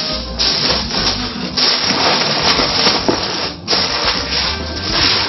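Aluminium foil crinkling and rustling as hands wrap it and press it tightly around a baking mould, in uneven bursts with a short lull about three and a half seconds in.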